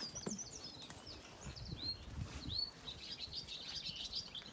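Small birds chirping and twittering busily, many short high calls with a few downward-sliding notes.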